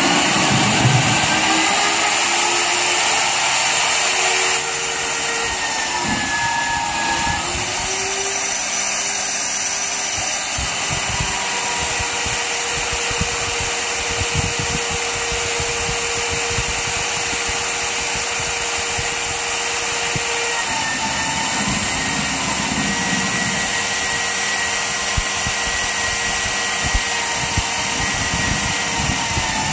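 Magnetic-base drill running an annular cutter into steel plate under hand feed: a steady motor whine over continuous cutting noise, the pitch sagging now and then as the cutter bites.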